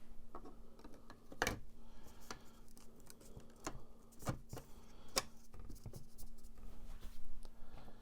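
Light clicks and taps of black plastic instrument-cluster pieces being handled and seated over the diffuser panels, about half a dozen separate clicks spread out, over a faint steady hum.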